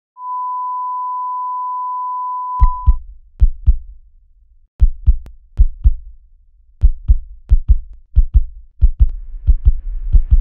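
Heart-monitor and heartbeat sound effects: a steady electronic beep held for about three seconds, then pairs of deep heartbeat thumps that come faster and faster, with a rising whoosh swelling in near the end.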